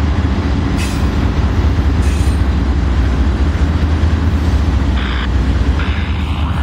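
Norfolk Southern diesel-electric freight locomotives passing at close range: a deep, steady diesel engine rumble with steel wheels rolling over the rails. There are a couple of sharp clicks early on, and a higher hiss comes in about five seconds in.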